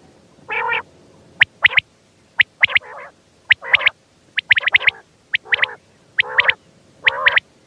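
Quail calling: sharp, high chirps in quick groups of two to four, alternating with short, nasal, buzzy notes, repeated about once a second.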